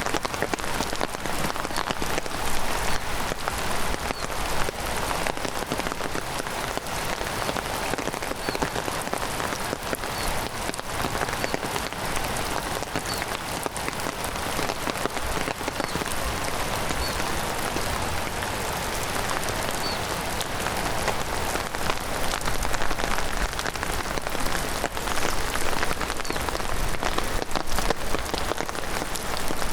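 Heavy rain falling steadily, with many separate close drop hits ticking through the steady hiss.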